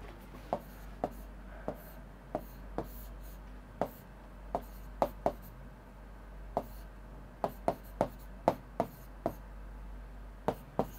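Hand-writing and drawing on a writing surface: a run of irregular sharp taps and short strokes, about two a second.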